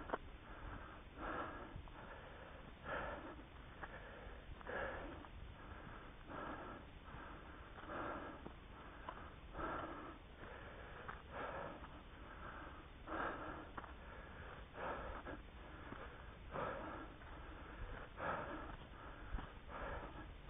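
A trail runner breathing hard close to the microphone while running uphill, one breath cycle about every second and a half to two seconds, with a steady low rumble underneath.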